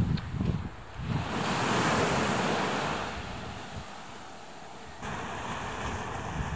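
Small waves breaking and washing up a sandy beach: a wash of surf that swells and fades over about two seconds. Wind buffets the microphone in the first second and again near the end.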